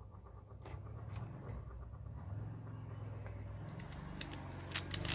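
Light clicks and small knocks from a Ryobi electric drill being handled at its chuck, sparse at first and more frequent near the end, over a low steady hum. The drill's motor is not running.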